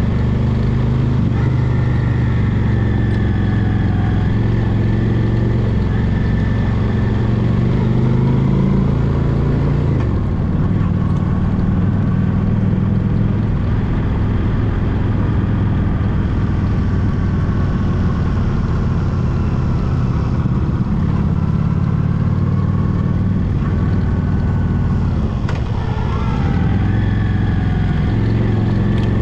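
Honda Shadow Spirit VT750's V-twin engine running under way on a gravel road, with a steady hiss of tyres and wind. The engine note is strong for the first third, then eases off. Near the end it dips and rises again, as with a gear change and acceleration.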